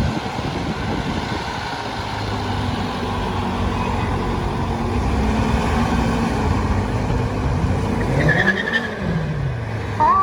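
Fire apparatus engine rumbling steadily in city street traffic, with a brief rise and fall in pitch near the end.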